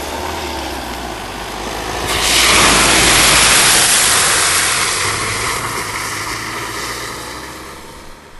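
A van driving past on a dirt track with its engine running low, and a loud rush of tyres splashing through a muddy puddle swelling in about two seconds in, then fading away.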